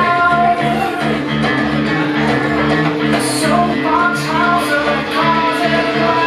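Dance music playing loudly, with a steady repeating beat and a melody line over it.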